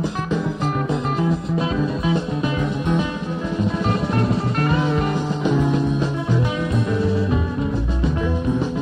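Live concert recording of a rock band playing: guitars over bass and drums in a blues-style number.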